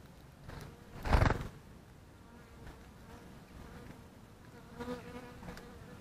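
A flying insect buzzing close to the microphone, passing loudest about a second in and buzzing again near the end.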